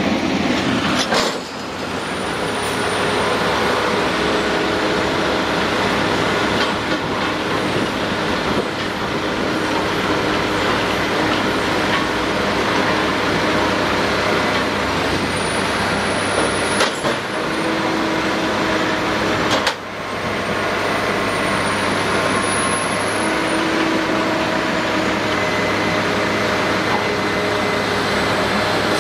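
Heavy diesel construction machinery running steadily: a bored-pile drilling rig and a concrete truck mixer working side by side. The level dips briefly a few times.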